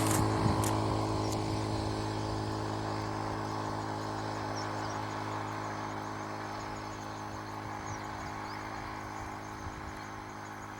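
Vehicle engine idling with a steady low hum that eases off slowly. Faint high chirps sound now and then above it.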